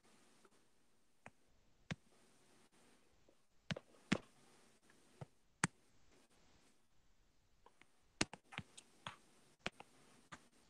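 Light, irregular clicks and taps of a phone being handled close to its microphone, about a dozen in all. The loudest comes about four seconds in, and a quick run of them comes near the end.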